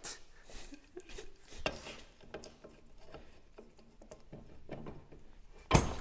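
Faint clicks and clinks of metal hand tools being handled and a large adjustable wrench being set on a nut on a hydraulic power steering rack, then a sudden loud bang near the end.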